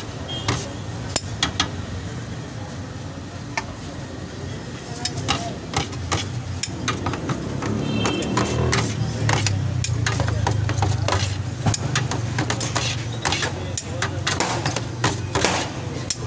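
Metal spatulas and tongs clattering and scraping on a large steel pan as shaved shawarma chicken is tossed and turned, a rapid irregular run of sharp clinks over a steady low hum.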